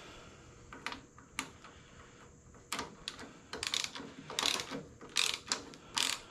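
Ratchet wrench driving a fork-stem spanner tool to unscrew a motorcycle's steering stem nut. A few separate clicks come first, then from about halfway short bursts of ratchet clicking repeat about every three-quarters of a second as the handle is swung back and forth.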